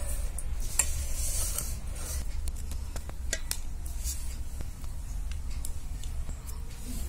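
Hands mixing a dry sattu stuffing with chopped onion and herbs in a steel bowl, with rustling and light scraping about a second in, followed by scattered soft clicks and crackles as fingers press the stuffing into a dough cup. A steady low hum runs underneath.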